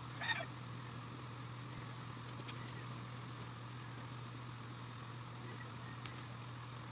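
Steady low hum over a faint even background noise, with one brief sound just after the start and a few faint clicks.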